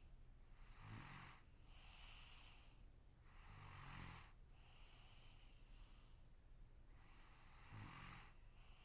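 A sleeping person snoring: three short buzzing snores about every three and a half seconds, with softer breaths out between them.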